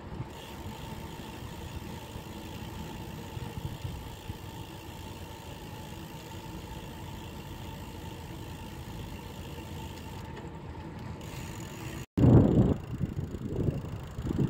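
Steady road and wind noise while riding a bicycle, with a faint steady hum underneath. After a brief cut about twelve seconds in, loud gusty wind buffeting on the microphone.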